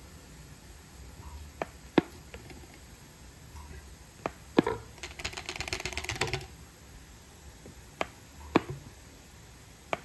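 A small plastic bottle tapped and pressed onto soft potato dough patties on a plate, giving sharp single clicks every second or two, with a quick rattling run of clicks a little past halfway.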